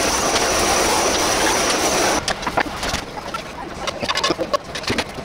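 Handheld butane torch hissing steadily as its flame sears a stir-fry in the pan, cutting off about two seconds in. Then metal tongs click and scrape as the food is slid from the frying pan onto a dish.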